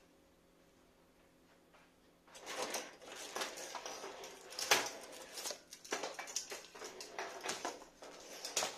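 Handling noise: rustling and light clattering as a plastic string of LED star and lantern lights is picked up and moved, with a sharp knock near the middle. It starts after about two seconds of quiet.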